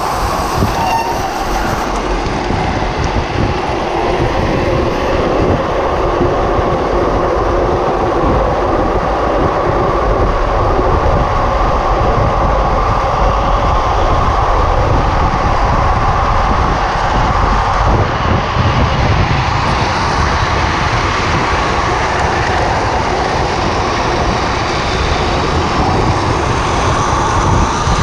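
Drift trike running fast downhill on asphalt: a steady rolling rumble from the wheels on the road, with wind rushing over the handlebar-mounted microphone.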